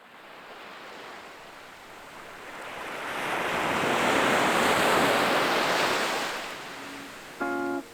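Sea waves washing up a pebble beach, one surge swelling to its loudest about halfway through and then drawing back. Acoustic guitar music starts near the end.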